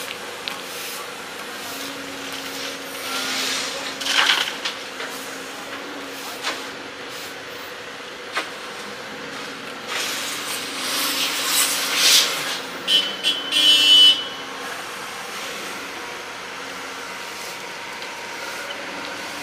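Excavator engine running steadily at work, with bursts of louder noise about four seconds in and again from about ten to fourteen seconds in, the second stretch ending in a brief high squeal.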